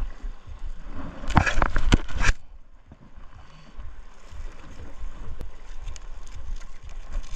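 Gillnet being hauled by hand into a boat: rustling of wet mesh and knocks of handling against the gunwale, with a louder burst of rustling and knocks about a second and a half in.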